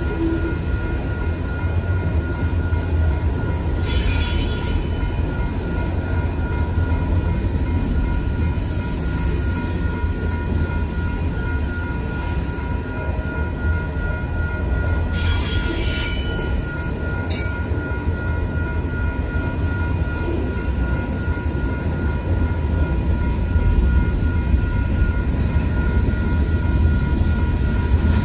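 Union Pacific manifest freight train rolling past through a grade crossing: a steady heavy rumble of car wheels on the rails, with short high wheel squeals four times along the way. A steady two-tone crossing bell rings under it.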